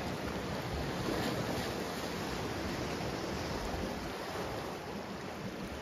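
Lake waves washing against a rocky shoreline, a steady rush of water, with wind rumbling on the microphone.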